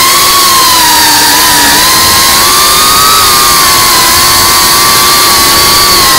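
FPV quadcopter's electric motors and propellers whining at a nearly steady pitch, with a dense hiss of propeller and wind noise under it.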